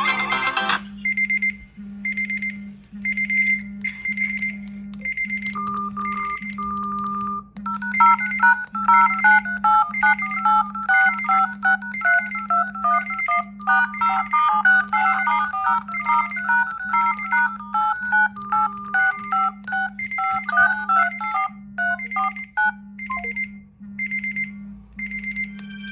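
Smartphone ringtone: a high electronic beep repeating about once a second over a low hum that pulses in step, with an electronic melody joining about six seconds in and stopping a few seconds before the end.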